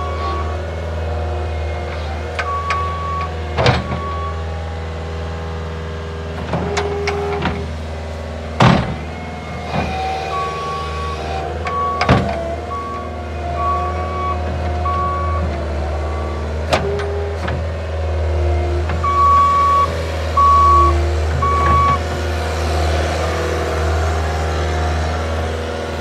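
Caterpillar 246C skid steer's diesel engine running steadily as the machine drives over rough ground, with its backup alarm beeping in several spells and about four sharp clanks from the machine.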